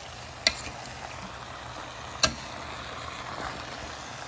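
Metal spatula stirring a thick chicken and jackfruit curry in a stainless steel pan over a steady low sizzle, with two sharp clanks of the spatula against the pan, about half a second in and again about two seconds in.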